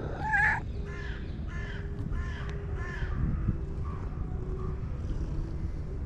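A run of short animal calls: one louder rising call, then four quicker evenly spaced calls and a couple of fainter ones, over a steady low rumble.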